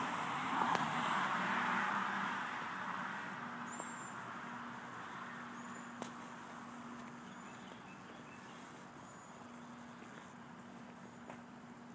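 A passing vehicle's road noise, loudest about a second in and then fading away over the next several seconds. A low hum comes and goes beneath it.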